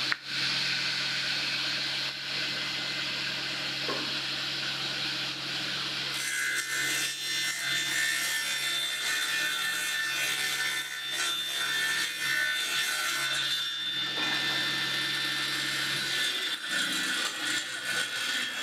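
Panel saw with a 7.5 kW three-phase main motor running steadily, its blade ripping a narrow strip of wood fed along the rip fence. The cutting noise grows denser and brighter from about six seconds in and eases off again about sixteen seconds in.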